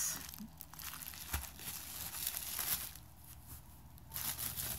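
A plastic bag crinkling and rustling as it is handled, in irregular crackles. It goes quieter about three seconds in, then the crinkling picks up again near the end.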